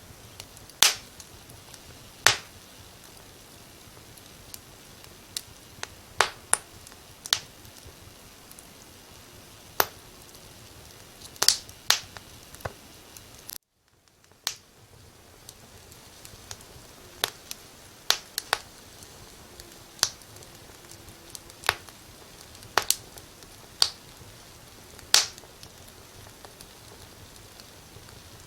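Wood fire crackling: sharp, irregular pops and snaps, about one a second, over a soft steady hiss. The sound cuts out for about half a second around the middle, then the hiss fades back in.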